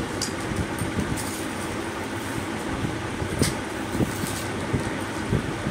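A steady background hum with a few light clicks and rustles as earrings in plastic packets are handled.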